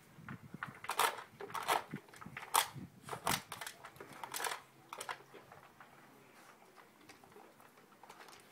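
A dog eating dry food from a plastic slow-feeder bowl with grass-like spikes: about six sharp crunches and clatters in the first five seconds, then quieter.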